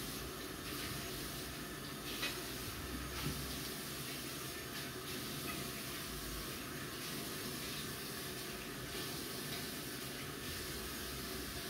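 Tap water running steadily into a bathroom washbasin, with a few light clicks as things are handled in the basin.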